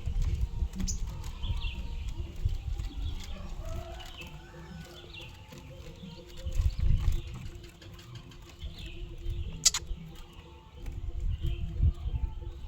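Short high chirps from a small songbird, repeated every second or so, with chickens clucking in the background and bursts of low rumble. A sharp click sounds about ten seconds in.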